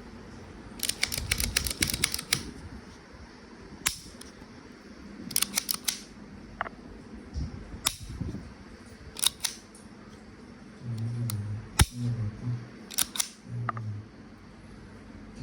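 Airsoft Hi-Capa gas pistol being handled and worked by hand: sharp metallic clicks and clacks, some in quick runs of several, the loudest single click about twelve seconds in.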